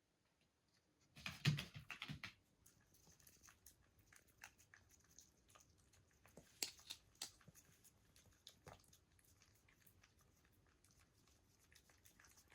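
A toy poodle chewing, faint scattered crunches and clicks, with a louder cluster about a second in.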